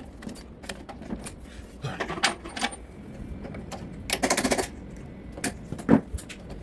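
Metal pressure-washer pump parts and hand tools clicking and clattering as they are handled. A quick run of rapid clicks comes about four seconds in, and a single knock near the end.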